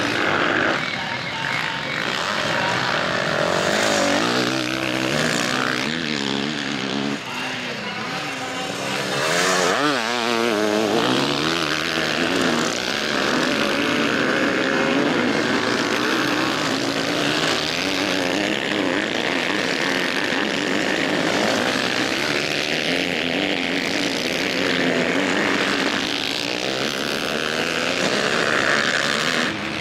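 Several motocross motorcycle engines racing on a dirt track, revving up and down through the gears as bikes pass one after another, with pitches sliding up and down as they go by.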